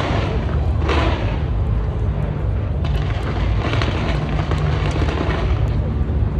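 Aerial fireworks going off in quick succession: a continuous low booming with many sharp pops and crackles on top.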